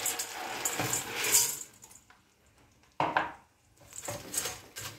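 Dried homemade noodles (erişte) tipped into hot oil and butter in a stainless steel pot, sizzling as they land, then stirred with a wooden spoon that scrapes and knocks against the pot. The sound drops away for about a second midway and comes back suddenly.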